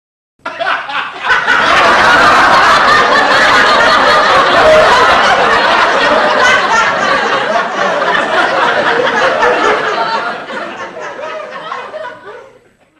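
Sitcom laugh track: a studio audience laughing together. It rises quickly about a second in, stays loud, then tails off over the last few seconds and stops just before the end.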